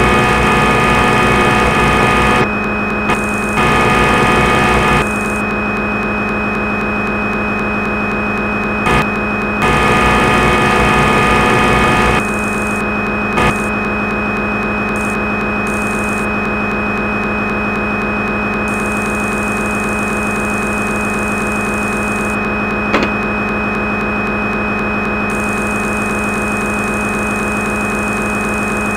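Simulated CNC lathe sound from a turning-machine simulator: a steady synthetic machine hum at a fixed pitch while the program runs. It turns louder and rougher for a few stretches in the first twelve seconds, with a few short clicks.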